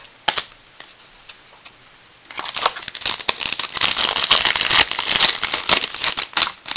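A foil trading-card pack wrapper being torn open by hand. It crinkles and crackles densely for about four seconds, starting a couple of seconds in after a few faint clicks.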